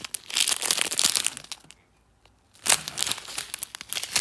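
Small clear plastic zip-lock bags of diamond-painting rhinestones crinkling as they are handled. The sound comes in two spells, with a short pause about two seconds in.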